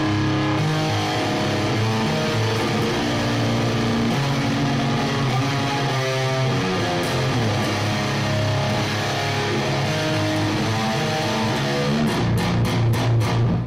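1977 Gibson RD electric guitar with Lace Dissonant Aggressors humbuckers, played through an Engl Invader 150 tube amp: sustained chords and single notes ringing, then a run of quick strummed chords near the end.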